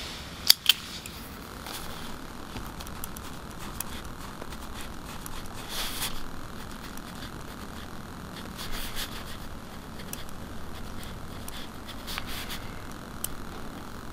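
Ballpoint pen writing on a spiral-bound notebook page, scratching in short strokes, with two sharp clicks about half a second in.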